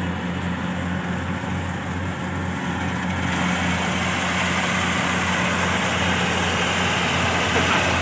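Daedong DSC62G tracked combine harvester's diesel engine running steadily with a constant low hum as the machine cuts through standing rice, growing a little louder from about three seconds in as it comes closer.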